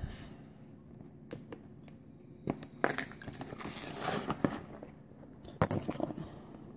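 Scattered sharp clicks and crackles of plastic as a pick pries at the glued edge between a tablet's glass digitizer and its frame. The sharpest click comes about five and a half seconds in.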